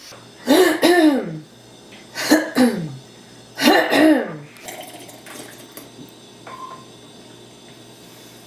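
A person making three short vocal bursts, most of them in two quick pulses and each falling in pitch, as one of a string of deliberately annoying mouth and throat noises.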